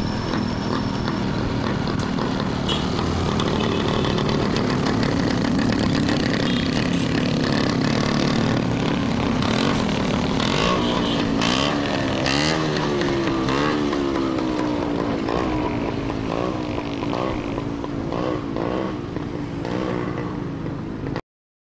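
Motorbike engines running at road speed, steady for about ten seconds, then an engine note rising and falling again and again as the throttle is worked; the sound cuts off suddenly near the end.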